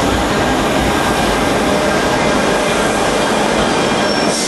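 Metro train running through the station: a steady loud rumble and rail noise, with a thin high wheel squeal near the end.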